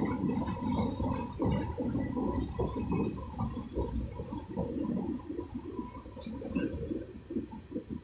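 CSX freight train cars rolling past close by: a steady rumble of steel wheels on the rails with irregular clanks and knocks, growing a little quieter near the end.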